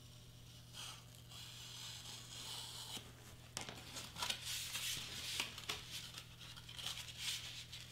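Cut pieces of foam board being pressed and pulled apart along a knife cut, giving irregular scratchy, crackly rustling with small clicks from about three and a half seconds in.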